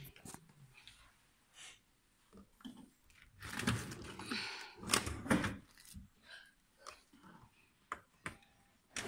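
A display counter's drawer sliding open on its runners, with a stretch of rubbing and rolling noise and a few sharp knocks of the drawer and cabinet.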